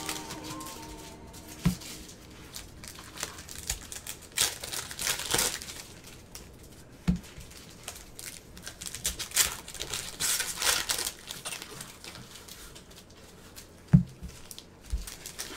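Foil wrappers of football card packs crinkling and tearing as the packs are ripped open by hand, in uneven bursts. There are three short knocks, the loudest near the end.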